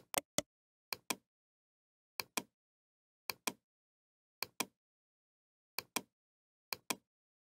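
Computer mouse button clicking in quick pairs, about one pair a second, seven pairs in all, with dead silence between.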